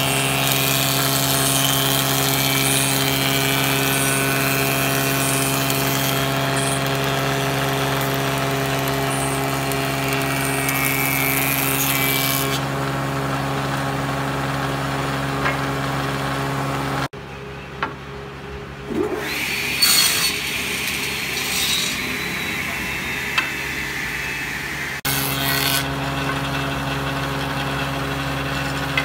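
A woodworking jointer-planer machine running with a steady motor hum, cutting wood with a hissing, rasping sound for about the first twelve seconds. About 17 seconds in the hum cuts off abruptly, leaving quieter shop sounds with a few knocks, and it returns about 25 seconds in.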